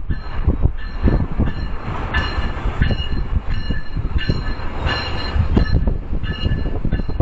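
Amtrak passenger train rolling past, its wheels clattering and thudding over the rails, with faint high squeals from the wheels coming and going.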